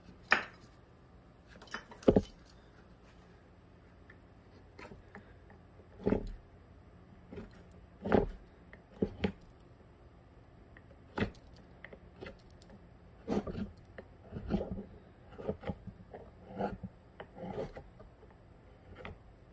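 Hand carving tool scraping and cutting into eucalyptus tree bark in short, irregular strokes, which come more often in the second half.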